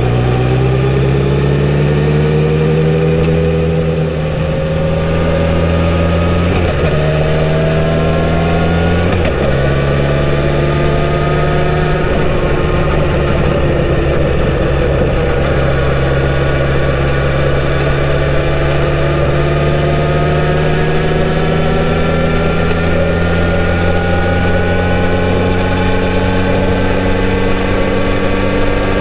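Kawasaki Z900RS's inline-four engine through its stock exhaust, heard on board while riding: the engine note climbs, drops at two upshifts at about six and nine seconds in, then settles into a steady cruise with the pitch rising slowly.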